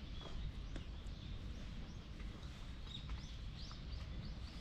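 Small birds chirping in short repeated calls over a low steady rumble of wind or outdoor background noise.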